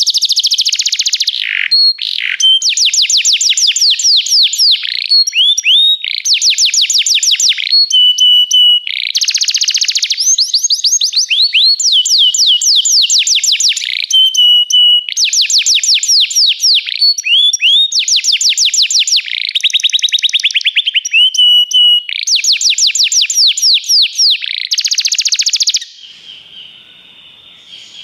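Belgian (domestic) canary singing: a rapid series of trilled phrases, each a fast run of repeated sweeping notes lasting about a second, broken by short held whistles. About two seconds before the end the loud song stops and only a much fainter trill remains.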